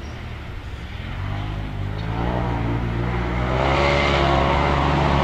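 Side-by-side UTV engine accelerating and drawing closer, growing louder from about a second in as its pitch rises, then running loud and steady.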